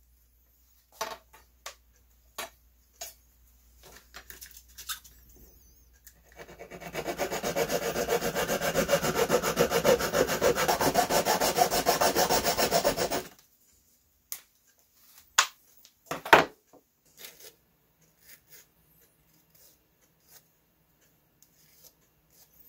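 A short piece of small brass tubing being cut through by hand with rapid, even strokes of a fine-toothed blade for about seven seconds, starting about six seconds in. Small handling clicks and taps come before and after.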